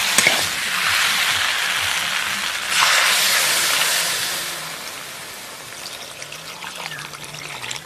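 Water poured into a hot kadai of frying spice paste and vegetables, sizzling and hissing, louder about three seconds in, then quietening as the pan fills with water.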